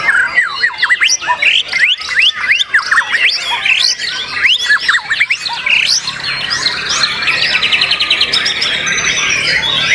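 White-rumped shama singing loudly: a dense run of quick, rising whistled notes, then a fast rattling trill in the last few seconds.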